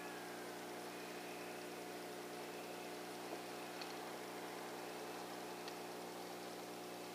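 Steady electrical hum with several fixed tones over an even hiss, unchanged throughout, with a couple of faint clicks; the self-noise of a digital rifle scope's built-in recorder.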